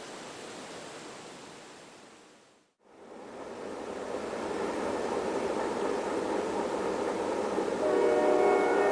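A steady rushing train noise fades out to a brief silence about three seconds in. A new stretch of train noise then fades in and grows. Near the end a Nathan K-5LA five-chime locomotive air horn sounds a held chord.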